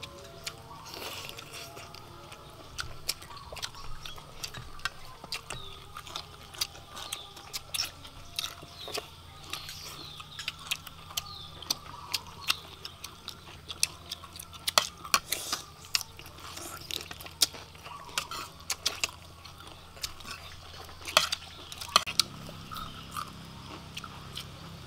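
Close-up eating sounds of several people chewing and smacking their lips on roast chicken and rice, with irregular sharp clicks of spoons against ceramic plates.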